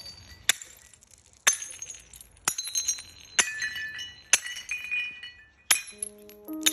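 Sharp glassy clinks, about one a second, each ringing briefly and high, like glass being struck or cracking. Steady musical tones come in near the end.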